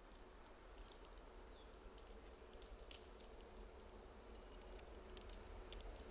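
Faint, distant electric freight train approaching: a low rumble with a thin steady whine that slowly grows louder. Light patter of rain drips and small high ticks sits over it.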